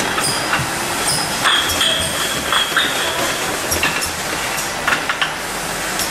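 Automatic chocolate cream jar-filling line running, a steady mechanical noise with irregular sharp clicks and clinks of glass jars moving along the conveyor. A brief high ringing tone sounds in the first half.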